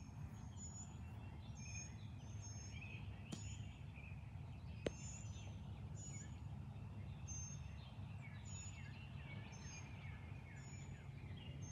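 Quiet outdoor ambience with birds calling: a short, high chirp repeats about once a second over scattered softer chirps and a steady low rumble. One sharp click about five seconds in.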